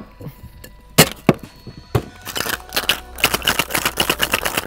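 Ice cubes dropping into a metal cocktail shaker tin with a few sharp clinks, then the sealed tins shaken hard, the ice rattling in a fast steady rhythm of about five or six strokes a second.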